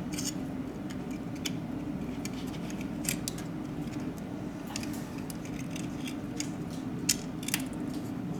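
Small repair tools and phone parts clicking and ticking against each other during a smartphone teardown: scattered sharp clicks, the loudest about three seconds in and again near seven seconds, over a steady low hum.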